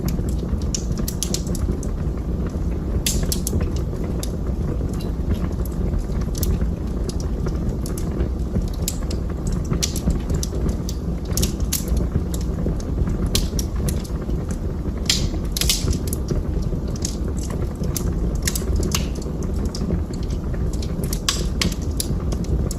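Wood fire burning in a fireplace: a steady low rumble of flames with irregular sharp crackles and pops, a cluster of louder pops about two-thirds of the way through.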